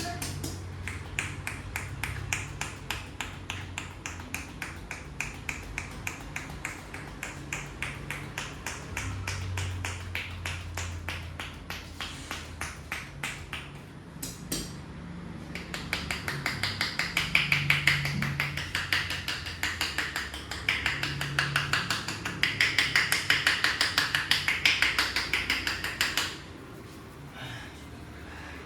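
A barber's hands tapping and slapping rapidly and rhythmically in a head massage, making a fast, even patter of strikes. After a brief pause partway through, the strikes come faster and louder, then stop abruptly near the end.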